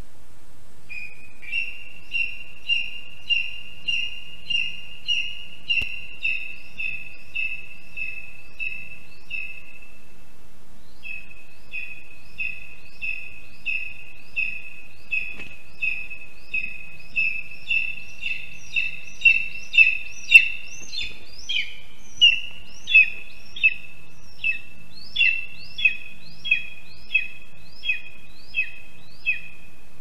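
Lesser spotted eagle calling: a long series of high, evenly spaced calls, nearly two a second, that pauses briefly about a third of the way in and grows loudest shortly after the adult lands on the nest.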